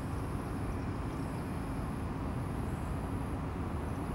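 Steady outdoor background noise: an even low rumble, with a thin high hiss that drops out briefly now and then.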